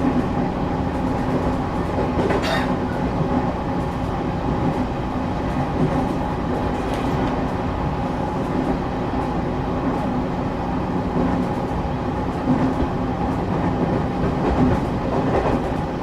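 The inside of a moving train: the wheels rumble steadily on the track under a steady hum, with one sharp clack about two and a half seconds in.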